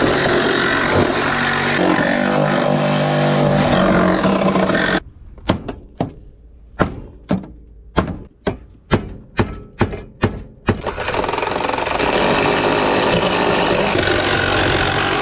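Cordless reciprocating saw cutting through a car's sheet-steel firewall. After about five seconds it stops, and about a dozen sharp hammer blows follow over some six seconds. Then the saw cuts again.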